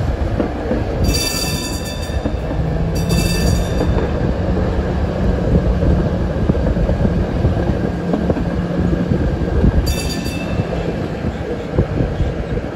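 Streetcar running along its rails: a steady low rumble with a constant hum. Three brief high-pitched squeals cut in, about a second in, three seconds in and ten seconds in.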